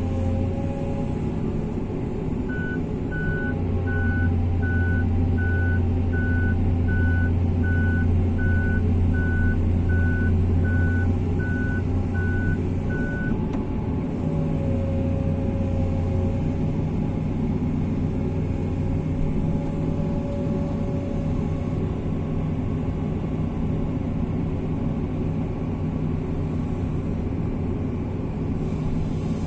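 Excavator diesel engine running steadily, with its travel alarm beeping about one and a half times a second from a couple of seconds in until about halfway through, then stopping.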